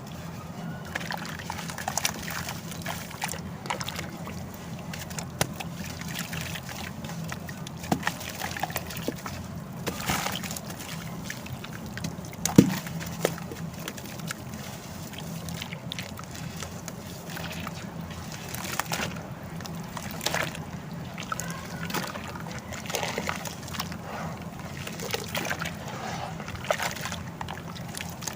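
Dry sand-cement pieces crumbling and crackling as they are dipped in water, with irregular crunchy clicks over sloshing and trickling water. One sharper crack about twelve seconds in.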